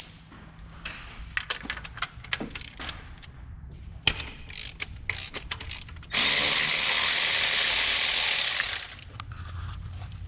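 Ratchet wrench clicking in short runs as spark plugs are worked out of a 1999 Mazda Miata's engine. About six seconds in there is a loud, steady hiss lasting about two and a half seconds.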